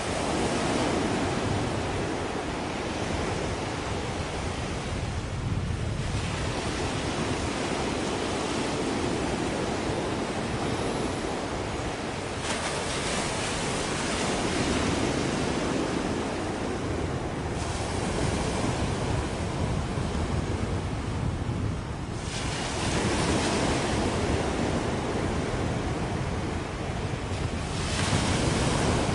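Wind and sea surf: a rushing noise that swells and eases every few seconds, with wind buffeting the microphone.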